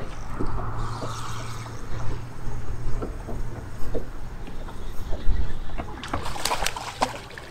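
Bass boat's electric bow trolling motor humming steadily, with water lapping on the hull. A few sharp clicks and knocks come near the end.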